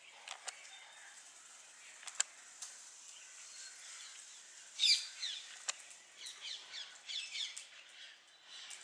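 Small birds chirping in quick runs of short, sweeping notes, loudest about five seconds in and again between six and seven and a half seconds. A few sharp ticks are also heard.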